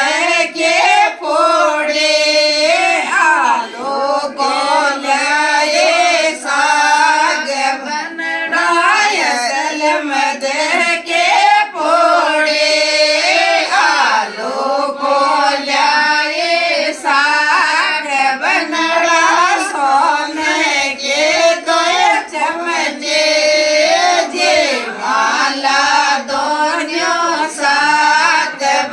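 A group of women singing a Rajasthani Shekhawati banna-banni wedding folk song together, unaccompanied by any instrument.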